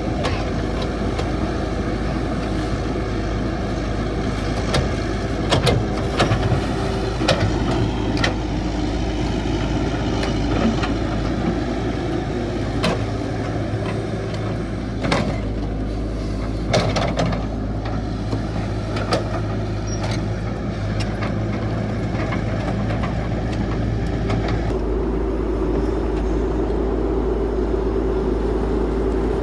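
CAT 312 hydraulic excavator's diesel engine running steadily under digging load, with scattered metallic knocks and clanks from the bucket and arm working the soil. The engine note shifts a few seconds before the end.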